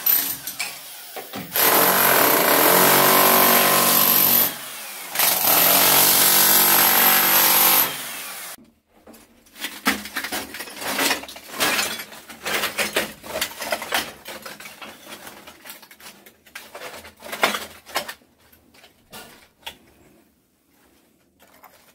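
Small electric demolition hammer chiselling up bathroom floor tile, running in two bursts of about three seconds each with a short break between. After that come scattered sharp knocks and clicks.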